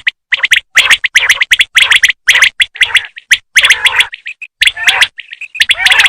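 Female common quail calling: quick groups of chirping, clicking notes in short bursts, broken by brief silences.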